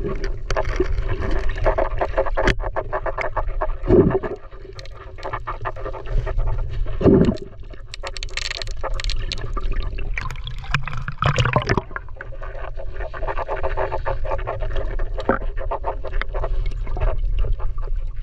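Water sloshing and crackling around an action camera held underwater, with a steady low rumble, dense small clicks and a few heavier knocks as the camera housing moves; a burst of churning around the middle as the camera nears the surface.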